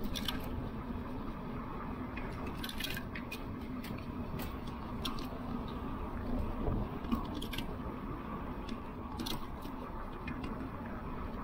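Lectric electric bike rolling at about 21 mph on a paved trail: a steady rumble of tyres and rushing air, with scattered light rattles and clicks from the bike over small bumps.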